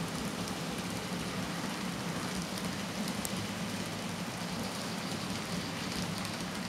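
N scale model freight train rolling along its track, the cars' wheels giving a steady rattling hiss with faint scattered clicks over a low steady hum.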